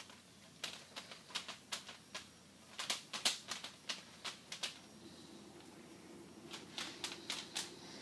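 Stranded copper wires being slid through Seal-Tite liquid-tight flexible conduit: irregular clusters of sharp clicks and scraping as the wires rub and catch along inside it.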